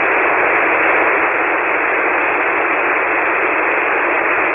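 Steady hiss of an HF ham transceiver's receiver on 40-metre single sideband, with no voice on the frequency. The noise is hemmed into the narrow voice band of the receive filter, which gives it a thin, radio-like sound.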